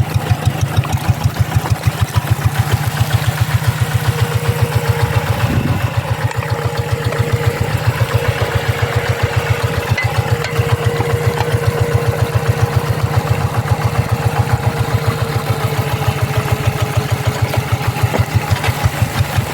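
Single-cylinder diesel engine of a G1000 two-wheel hand tractor running steadily with an even, rapid chugging beat.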